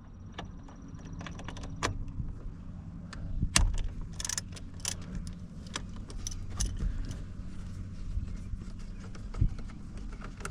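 Irregular metallic clicks and clinks of a hand tool working the T30 Torx screws that hold the steering-wheel airbag, over a steady low hum.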